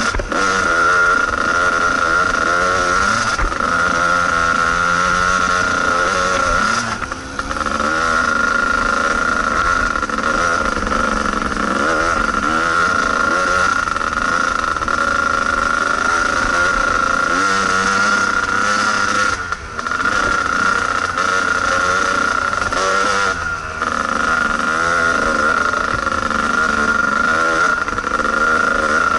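Dirt bike's two-stroke single-cylinder engine (Kawasaki KDX220) running on a trail ride, revs rising and falling with the throttle over a steady high whine. The throttle is briefly shut off three times.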